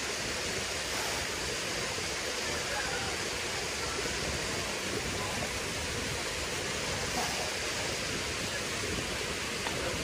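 Steady rush of falling water from the Ranmudu Ella waterfall into its rock pool.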